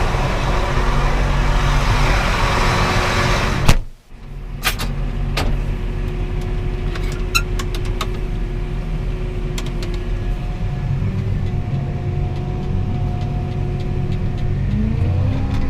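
Farm vehicle engine running; about four seconds in a sharp bang, like a cab door shutting, after which the engine sounds duller, with a few light clicks. Near the end the engine speeds up as the vehicle moves off.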